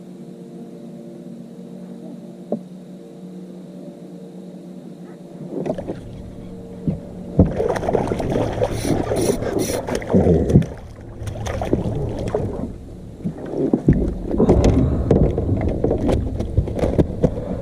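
A small boat motor humming steadily with a few low tones. About five and a half seconds in, louder irregular knocking and rustling in the boat takes over and comes and goes.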